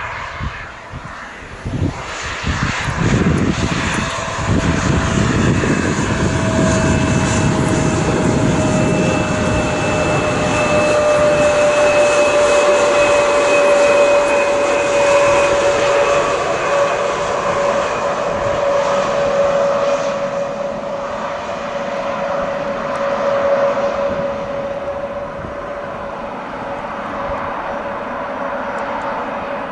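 Twin rear-mounted General Electric CF34 turbofans of a Bombardier (Mitsubishi) CRJ-900LR jet rolling past on the runway: a loud jet rush that builds over the first few seconds, with a low and a high whine that slowly sink in pitch as the engines spool down, fading somewhat near the end.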